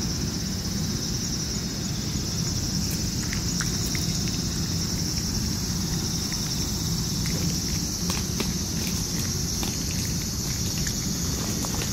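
Steady high drone of cicadas, with scattered close clicks of a cat chewing and licking wet food and kibble from a metal bowl.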